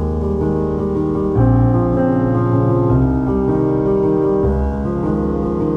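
Background piano music, with chords and bass notes changing every second or two.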